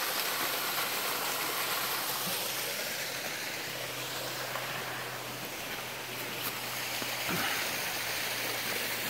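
Steady rush of flowing water from a woodland stream and waterfall.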